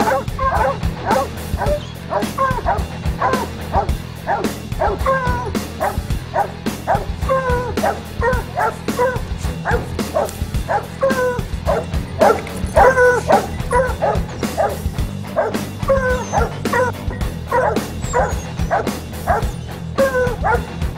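Hunting hounds barking and baying at a treed cougar, short yelping barks several a second with no let-up: the hounds are holding the cat at the tree.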